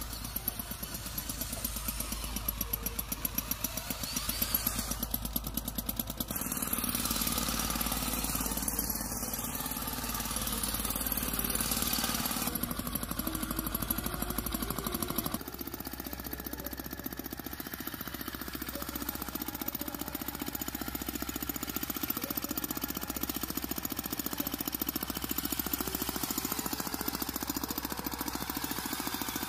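Homemade remote-controlled 4x4 model tractor running and driving through sand: a fast, steady, engine-like chugging with rapid knocking. Its tone changes a few times, most clearly about halfway through.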